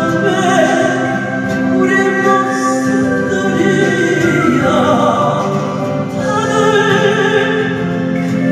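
Music: a song sung over instrumental accompaniment, with long held notes.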